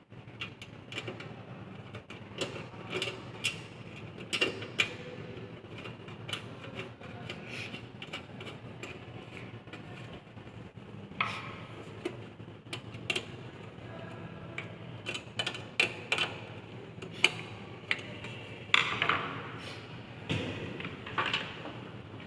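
Irregular clicks, knocks and scrapes of desktop computer hardware being handled in and around a system unit case, with a low steady hum underneath.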